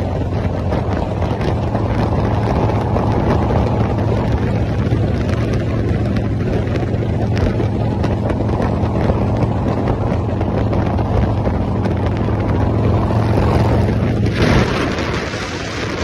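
Cruiser motorcycle engine running steadily at highway speed, with wind rushing over the microphone. About 14.5 seconds in, the engine hum drops out and a louder rushing hiss of wind and road noise takes over.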